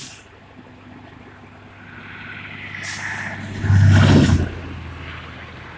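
Truck engine running steadily, then swelling much louder for under a second about four seconds in, with a few short hisses.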